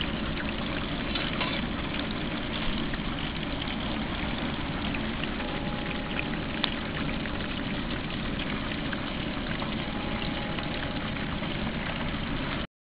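Outdoor propane turkey fryer running: a steady roar from the burner under the aluminium pot, with the oil bubbling around the turkey inside. The sound cuts off suddenly near the end.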